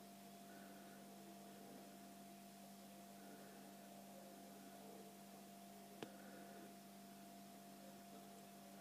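Near silence: a faint steady electrical hum, with a single short click about six seconds in.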